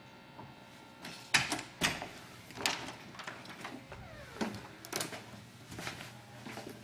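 A door being opened and let swing shut under its door closer: a run of sharp clicks and knocks from the latch and door hardware, starting about a second in, with the closer itself making a sound.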